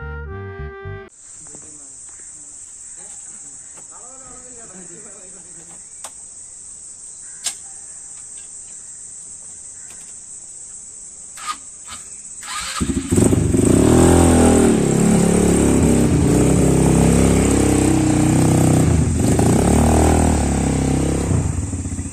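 A quad bike's engine starts about halfway through and runs loudly for several seconds, then drops to a pulsing idle near the end. Before it starts there is only a steady high-pitched hiss and a few faint clicks, after the last notes of music.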